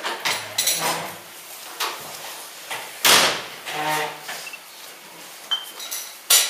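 Scattered knocks and clicks of handling noise in a room, with a loud rushing noise about three seconds in and a sharp knock just before the end.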